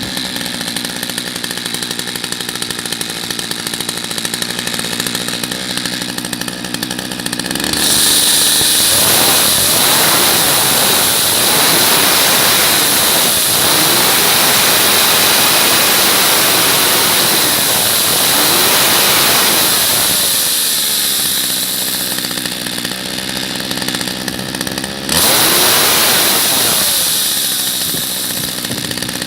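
McCulloch MAC436 two-stroke chainsaw idling, then revved to full throttle and held for about twelve seconds. It drops back, gets a second short burst of throttle near the end, and settles back to idle.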